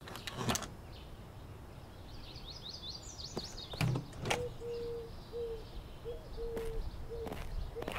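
A front door unlatching and opening with a clunk about four seconds in, with clicks of the handle before it. Birdsong around it: a quick high chirping trill just before the door opens, then a low cooing call in short repeated notes.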